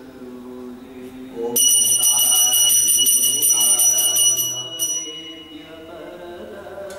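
Puja hand bell rung rapidly and continuously for about three seconds, starting about one and a half seconds in, then stopping and ringing out briefly. Singing continues underneath.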